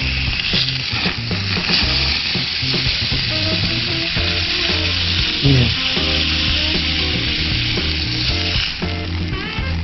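Meat sizzling and frying on a small grill plate over a campfire, a steady hiss that eases off about nine seconds in. Background music with a bass line plays underneath.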